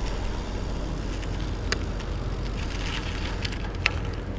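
Steady low rumble of wind on the microphone and tyres rolling on asphalt as a bicycle slows and turns, with a couple of faint clicks.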